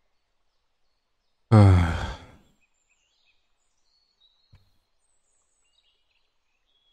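A man's deep, voiced sigh about a second and a half in, falling in pitch and trailing off into breath over about a second. A soft click follows a few seconds later, with faint high chirps in the background.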